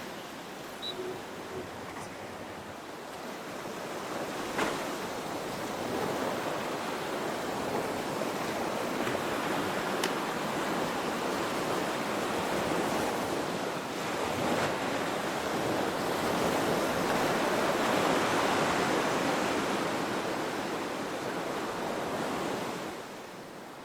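Steady rushing of wind and surf on the beach, building a few seconds in and easing off near the end.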